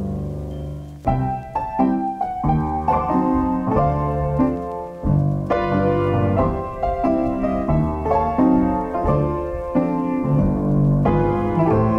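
Background piano music: a held chord dies away, then about a second in a gentle melody of single notes and chords begins and carries on.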